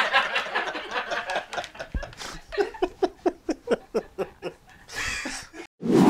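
Men laughing hard: a run of rapid, evenly spaced 'ha-ha' pulses in the middle, then a loud, breathy burst near the end.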